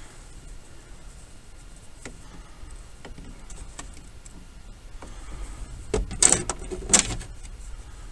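Hand work on a truck's steering column while fitting a clock spring: scattered light clicks, then a brief clatter of small parts rattling about six seconds in.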